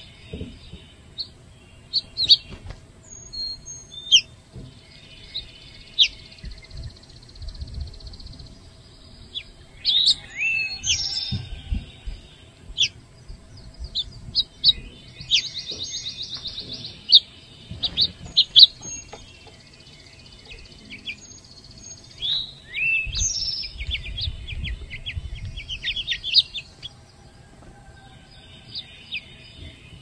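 Several songbirds calling around the feeders: quick repeated chirps, sharp whistled notes that slide down or up in pitch, and a few buzzy trills, the longest about halfway through.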